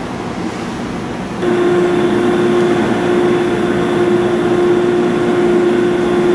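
CNC extension spring coiling machine running with a steady mechanical hum; about a second and a half in, a louder steady whine starts and holds.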